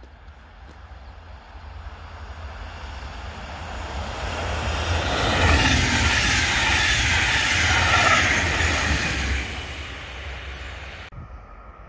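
Red double-deck passenger train passing close by: its rumble and wheel-on-rail noise build from a distance, stay loud for about four seconds as the coaches go past, then fade. The sound drops off abruptly just before the end.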